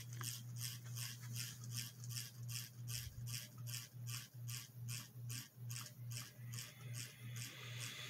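Cheap mid-2000s ceiling fan running on low speed. Its motor hum pulses together with a regular rasping tick about four times a second.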